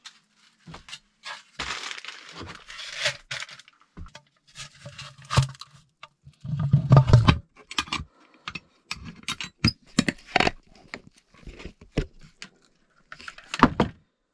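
Groceries being packed away by hand: rustling of packaging with irregular clicks and knocks, and one heavy dull thud about seven seconds in.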